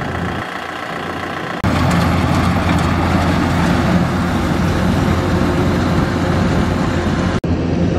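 Farm tractor's diesel engine running steadily as it strains to pull a loaded trailer stuck in mud. The sound jumps louder about a second and a half in and drops out for an instant near the end.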